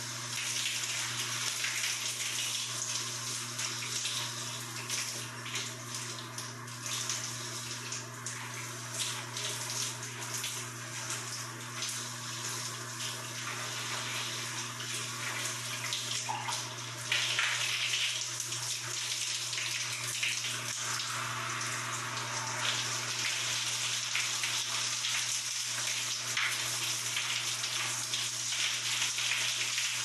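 Shower running: water spraying from a showerhead in a steady hiss, with a low steady hum underneath. The spray shifts and gets slightly louder a little past halfway.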